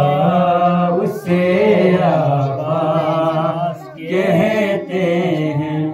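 A young man singing a Urdu manqabat in praise of Abbas as a solo voice into a microphone. He holds long, drawn-out notes in three phrases, with short breaks about one and four seconds in.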